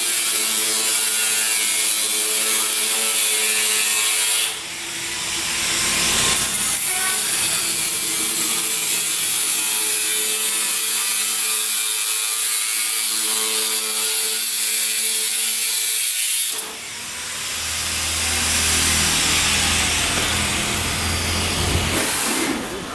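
Steel plate being cut with a power cutting tool: a loud, continuous, hissing grind with a steady hum beneath. It dips sharply twice, about four and a half and seventeen seconds in, then builds back up as the cut goes on.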